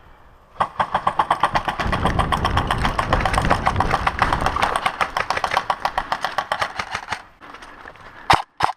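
Airsoft electric rifle, an M4-style AEG, firing full auto in one long burst of rapid, even shots lasting about six seconds. Two short sharp cracks follow near the end.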